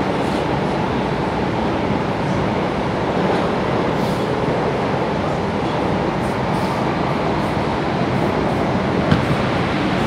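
São Paulo Metro Frota P subway train running at speed through a tunnel, heard from inside the car as steady running noise of wheels on rail and rushing air. One short click near the end.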